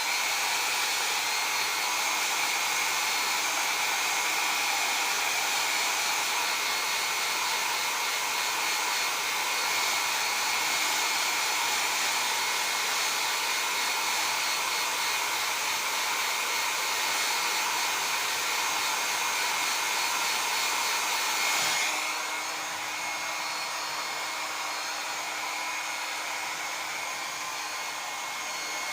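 Handheld hair dryer blowing steadily, a rush of air with a steady high whine. About three-quarters of the way through it drops a little in level and tone.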